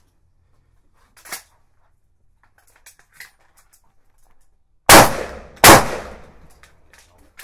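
Two shotgun shots about three-quarters of a second apart, some five seconds in, each followed by a long echoing tail. A light clack comes about a second in.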